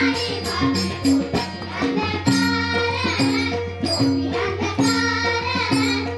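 Music with a steady beat of hand percussion, tabla-like drum strokes and rattling, over a low sustained bass note and a melodic line.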